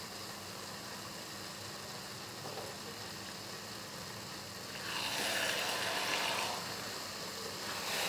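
Pulao rice cooking on a gas flame as the last of its water cooks off: a steady low hiss, with a louder hissing swell lasting a couple of seconds about five seconds in.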